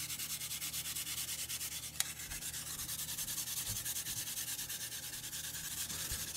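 Peeled nagaimo (Chinese yam) rubbed quickly up and down a flat metal hand grater: a steady rasping scrape in quick, even strokes, several a second, with a single click about two seconds in.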